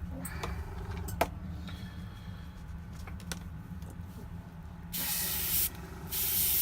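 Airbrush spraying matte varnish in two short hissing bursts near the end, each about half a second, after a few faint clicks.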